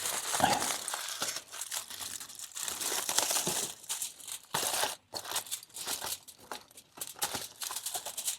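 Wrapping being crinkled and handled, in irregular crackly rustles with a short pause about five seconds in.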